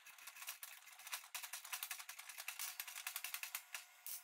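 Quick, irregular small metallic clicks and rattles from the steel parts of a Ram front axle shaft, its new U-joint and the C-frame U-joint press being handled and adjusted.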